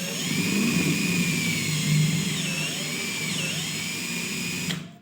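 Handheld electric power tool running at full speed, its motor pitch wavering a little, then switched off near the end.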